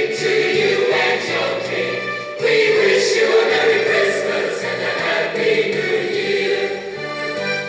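Background music: a choir singing in held notes.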